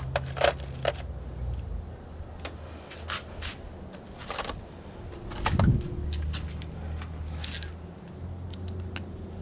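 Small metal parts and hand tools clinking and knocking in irregular handling noise, with a few ringing metallic ticks after about six seconds, over a steady low hum.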